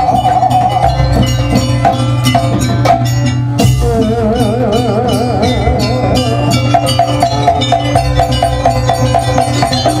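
Live Javanese Jaranan gamelan music: hand drums and struck bronze gongs and metallophones keep a dense beat under a wavering melody line. A sharp strike about three and a half seconds in starts a new melodic phrase.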